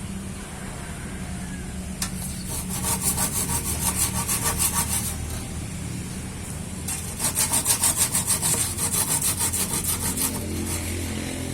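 A saw cutting Bornean ironwood, going in two spells of rapid, even strokes, about four or five a second, over a steady machine hum.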